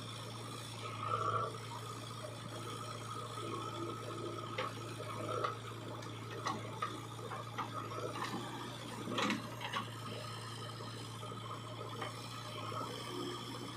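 A steady low machine drone with scattered scrapes and knocks, as of a JCB 3DX backhoe loader's bucket scraping and digging mud.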